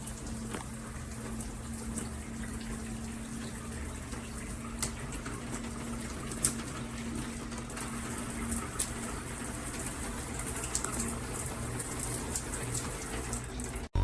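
Water running from a shower head, a steady hiss of spray with a faint low hum underneath.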